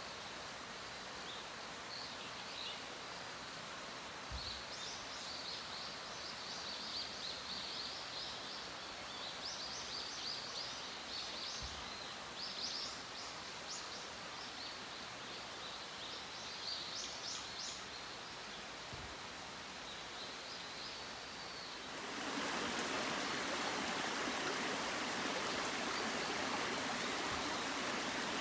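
Woodland morning ambience: birds chirping over a faint steady background. About 22 seconds in, the running water of a shallow rocky stream comes up suddenly and holds steady, louder than before.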